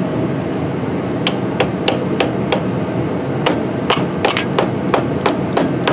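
Hammer tapping a battery cable terminal clamp down onto the battery post: a run of short metallic taps, about three a second, with a brief pause midway, over steady background noise.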